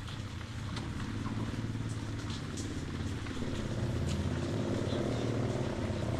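A motor vehicle's engine running, growing steadily louder, with scattered clicks and rattles.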